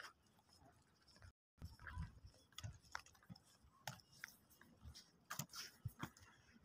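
Near silence, with faint scattered ticks and soft rustles.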